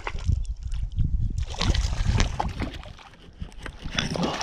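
Shallow creek water sloshing and splashing close by around a wading angler's legs and a hooked trout, with wind buffeting the microphone as a low rumble.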